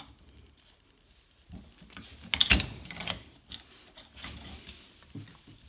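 Metal clicks and scrapes as a nut is fumbled onto the threaded end of a slide hammer attachment on the CV axle's outer joint, with one louder metallic clatter about two and a half seconds in.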